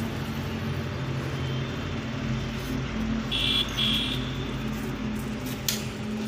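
Steady hum of a running engine or motor, with a brief high tone about halfway through.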